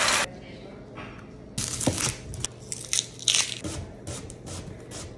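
Kitchen knife slicing through a raw onion on a wooden cutting board: a run of quick, irregular crunchy cuts starting about a second and a half in. It opens with a brief hiss of pan sizzle that cuts off abruptly.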